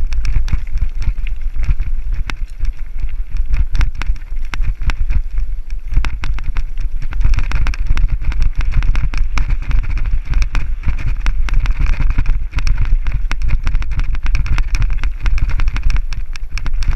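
Mountain bike descending a rough downhill trail, with constant rattling and clatter as it hits rocks and roots, and wind rumbling on the microphone.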